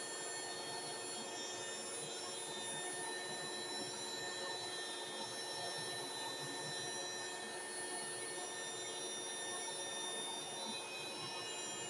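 Dirt Devil Ultra hand vacuum running steadily, a whine of several high tones over a rushing hiss, as it sucks dust off a box fan motor.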